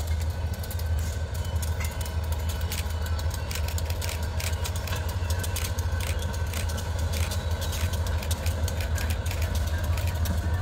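Two diesel locomotives passing at low speed, hauling a freight train, their engines giving a steady low drone, with irregular clicks from the wheels and rails over it.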